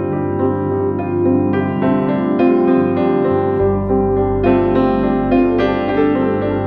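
Soft, slow piano music with sustained chords and a low bass note entering about halfway through.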